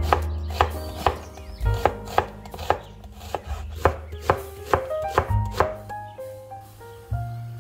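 Chef's knife slicing an onion on a wooden cutting board. The blade knocks on the board about twice a second, then stops near the end.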